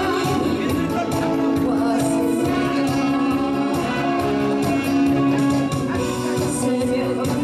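A woman singing into a microphone, backed by a live amplified band with a steady beat.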